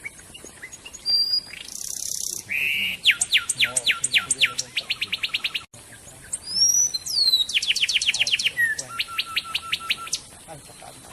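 A songbird singing in two long phrases of quick downward-sweeping whistled notes, the first speeding into a rapid trill. A short break comes about halfway through.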